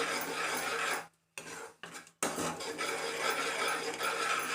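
A spoon scraping and stirring around a pan of masala gravy just thinned with water. The scraping stops twice briefly, about a second in and again near two seconds.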